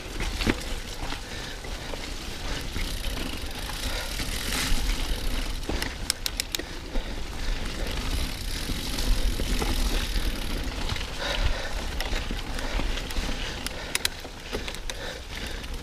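Mountain bike ridden up a wet trail climb: tyres rolling over the dirt and the drivetrain rattling under a low steady rumble. A few sharp clicks come around six seconds in and again near fourteen seconds.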